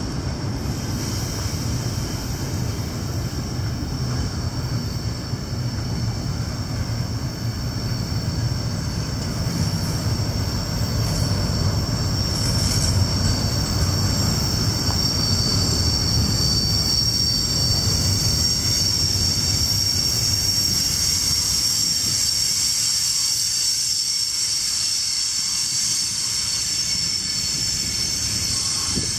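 Double-stack intermodal container train rolling past, its well cars rumbling on the rails, with a steady high-pitched wheel squeal that grows louder about halfway through as the low rumble fades.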